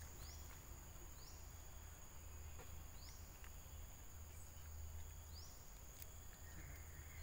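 Faint outdoor ambience: a steady high-pitched insect drone with short rising chirps now and then, over a low hum.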